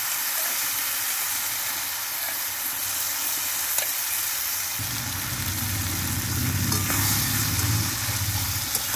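Marinated mutton and fried onions sizzling steadily in hot oil in a kadai. About halfway through, a low rumbling noise joins the sizzle as a metal spatula begins stirring the meat.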